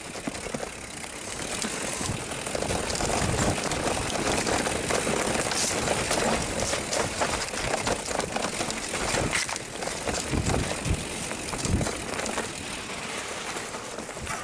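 Mountain bike descending a rough, rutted trail: a steady rushing noise of tyres on dirt and rock, with many rapid knocks and rattles from the bike. It grows louder about two seconds in.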